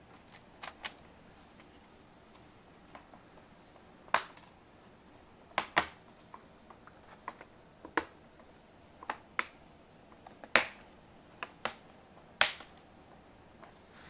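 Sharp, irregular clicks and taps of hard plastic and small metal parts being handled and fitted as a laptop is put back together, about fifteen over the stretch, with no steady rhythm.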